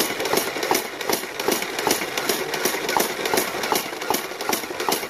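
Nerf Mega Mastodon, a fully automatic battery-powered flywheel blaster, firing a continuous burst of Mega darts from its rotating drum. Its flywheels run with an even, rapid clatter of about six beats a second that starts abruptly and cuts off near the end.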